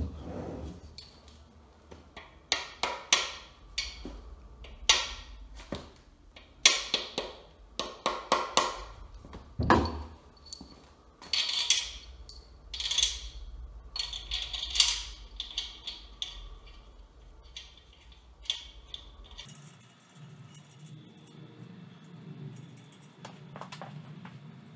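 Irregular metallic clinks and knocks of cast main bearing caps and their bearing shells being handled and set on a small-block Chevy engine block. A run of sharp clinks comes in the first fifteen seconds, then lighter handling noise.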